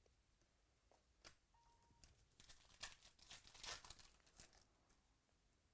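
Faint rustling and crinkling of trading cards and pack wrappers being handled, with a few soft clicks. Most of it comes in a cluster in the middle.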